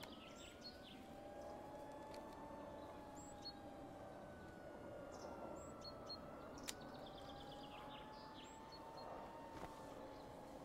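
Faint, distant siren wailing slowly up and down, twice, with birds chirping and a couple of sharp clicks.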